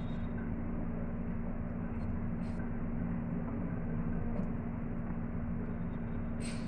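Steady hum of a running kitchen appliance motor with a constant low drone, and a few faint clicks of a wooden spatula against the pan.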